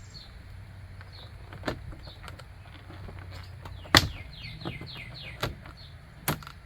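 A handful of sharp knocks and clicks from interior door trim being pressed and snapped into place on an SUV's rear door, the loudest about four seconds in. Birds chirp in the background, with a quick run of chirps near the middle.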